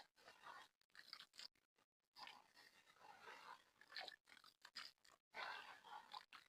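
Hard, gritty black mud crumbling with dry crunching, in a string of short bursts broken by sudden silent gaps.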